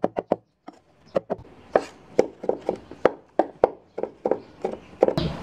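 Meat cleaver chopping on a wooden cutting board, uneven knocks about three a second after a short pause near the start, mincing pork belly and then garlic.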